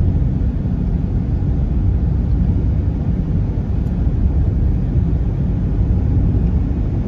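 Car driving on a paved road, heard from inside the cabin: a steady low rumble of road and engine noise.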